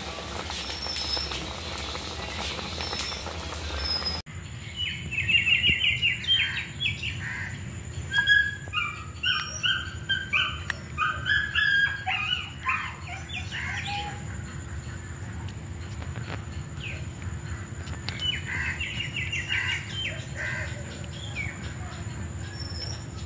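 Birds calling: rapid runs of short chattering notes, in a long series through the middle and again near the end, over a steady faint hum. Underneath, a knife scrapes along a fish's skin.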